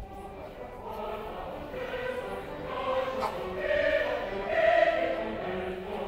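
Live choir singing with an orchestra, sustained chords swelling to a peak about five seconds in and then easing, picked up by a phone's microphone from far back in the audience.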